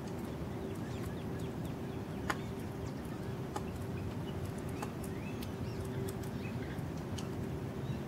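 Small songbirds giving short, scattered chip and tick calls over a steady low rumble with a faint hum underneath.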